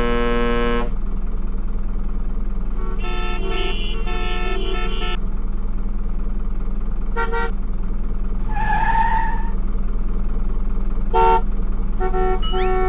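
Toy car horn sounds: a held toot, then a short tune of several honking notes, a brief beep, a wavering tone, and more toots near the end. There is a sharp click about two-thirds of the way in, and a steady low hum underneath.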